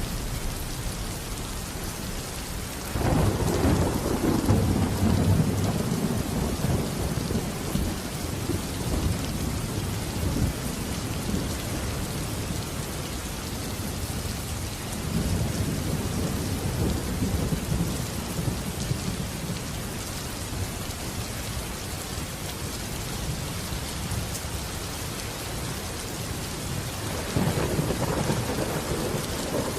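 Steady heavy rain with rolling thunder: a sudden low rumble about three seconds in that dies away over several seconds, a weaker roll around the middle, and another near the end.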